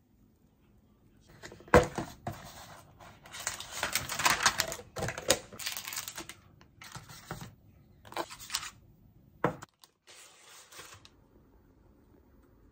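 Air fryer basket and paper liner being handled: a loud sharp click about two seconds in, then rustling and scraping of the paper liner as the cookies are lifted out, with a few more clicks and knocks before it goes quiet.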